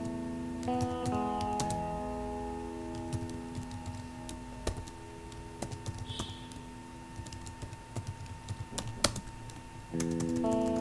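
Typing on a computer keyboard: irregular runs of key clicks. Quiet background music with held notes plays under it, fading out about three seconds in and coming back near the end.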